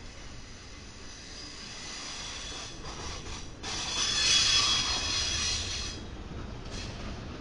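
Double-stack intermodal freight cars rolling past on the rails with a low steady rumble. About three and a half seconds in, a high metallic wheel squeal starts suddenly and holds for about two seconds, with brief fainter squeals just before and after.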